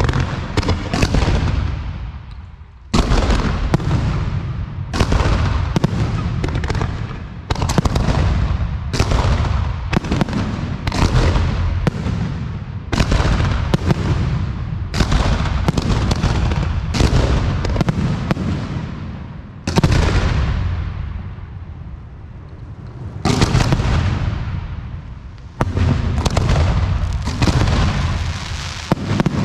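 Aerial firework shells bursting in quick succession, about one bang a second, each fading away before the next, with a brief lull past the middle.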